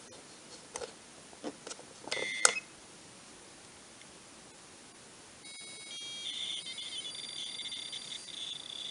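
A few sharp clicks as the Tapuino's buttons are pressed. Then, about five and a half seconds in, a high-pitched electronic sound of several shifting tones starts and keeps going. This is the Commodore 64 tape-loading signal played aloud by the Tapuino as it reads a program from its SD card.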